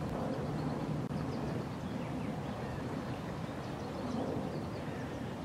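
Steady low outdoor rumble of wind and water at the lakeshore, with faint short bird calls scattered through it.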